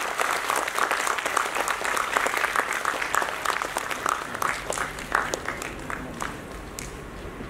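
Audience clapping in applause, dense at first, then thinning out and dying away over the last couple of seconds.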